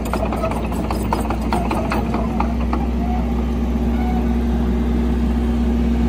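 Heavy diesel engine of earthmoving machinery running steadily, with a constant low hum and a steady tone. A quick run of clicks sounds over the first two seconds.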